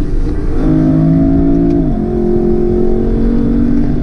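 Lexus LC500's naturally aspirated 5.0-litre V8 pulling steadily, heard inside the cabin, with one drop in pitch about two seconds in as the 10-speed automatic upshifts.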